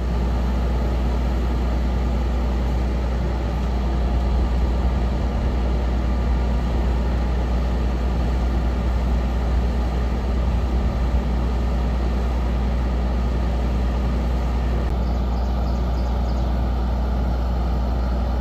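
Bucket truck's engine running steadily, powering the hydraulics as the aerial boom is raised: an even, low rumble.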